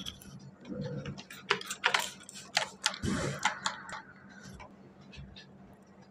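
A plastic water bottle being handled and squirted onto an armpit to wet the skin before a razor shave: a run of short clicks, taps and brief spurts of spray, mostly in the first four seconds.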